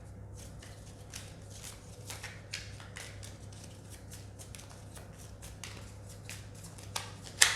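Tarot cards being shuffled by hand: a run of quick, irregular soft flicks and slides of card stock, with one sharper snap near the end as a card is pulled.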